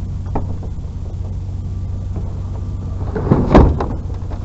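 Vehicle engine idling steadily, with a loud knock and clatter about three and a half seconds in, like something heavy being handled or a door shutting.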